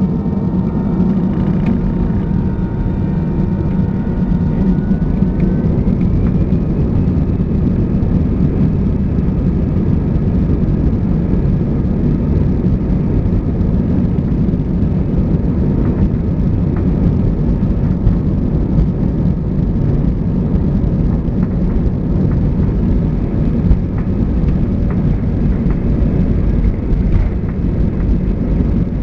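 Cabin noise of an Airbus A320 airliner moving on the ground: a steady jet-engine roar and rumble, with a thin whine that glides up in pitch about five seconds in.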